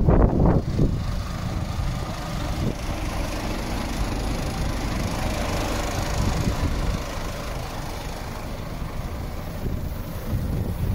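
Wind buffeting the microphone, strongest in the first second, over a steady low rumble.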